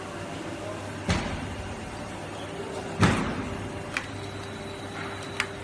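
Vertical injection molding machine running with a steady hum, with two heavy metallic clunks, about a second in and about three seconds in, the second the loudest, followed by a couple of lighter clicks.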